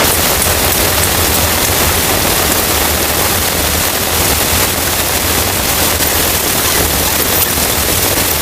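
Heavy rain falling, a loud steady hiss with no break.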